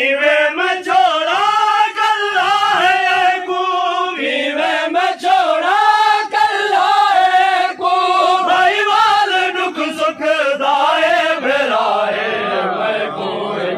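A group of men chanting a noha, a Shia lament, in unison behind a lead reciter, the lines sung in long, wavering phrases. Sharp hand strikes on chests (matam) come through irregularly under the singing.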